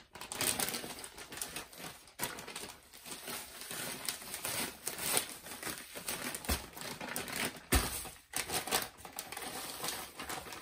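Plastic zip-top bag crinkling and rustling as chicken legs are shaken and worked around in breadcrumbs inside it, with a louder thump about three-quarters of the way through.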